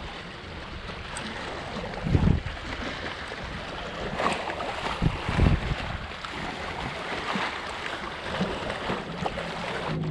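Wind blowing across the microphone over lapping shoreline water, with a few dull bumps about two, four and five seconds in.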